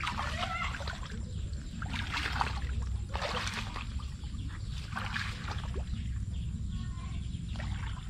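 Shallow water splashing and sloshing in irregular bursts as a person wades and works through weed-choked floodwater, over a steady low rumble.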